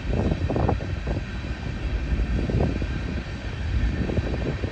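Freight train of covered hopper cars rolling past: a steady low rumble of wheels on rail with uneven knocks and surges.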